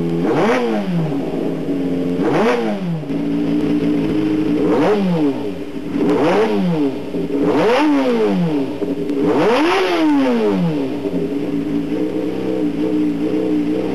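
Suzuki GSX-R250R's 250 cc inline-four engine, fitted with Keihin FCR28 carburetors and a full aftermarket exhaust, blipped on the throttle while the bike stands still: six quick revs, each rising sharply and falling straight back. After the last one it settles to a steady idle.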